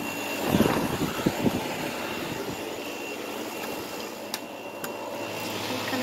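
Kool King window air conditioner running with its cover off: a steady drone of the compressor and fan. A few low thumps come in the first second and a half, and a couple of sharp clicks about four and a half seconds in.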